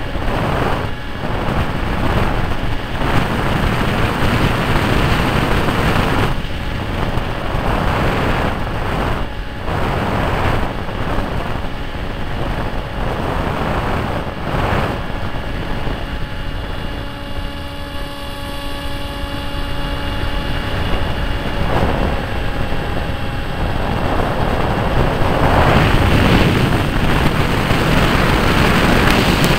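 Loud rushing wind and propeller noise from an RC model airplane in flight, heard from its onboard camera, surging and easing as it banks and dives. About halfway through, the rush drops and a steady motor whine comes through.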